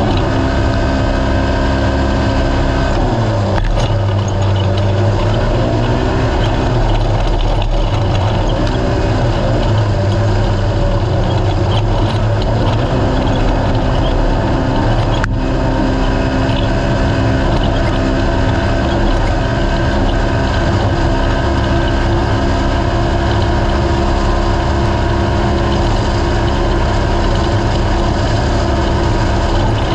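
Naturally aspirated UTV race car engine running hard under load. Its revs drop and climb back three times in the first half, then hold steady, with two sharp knocks along the way.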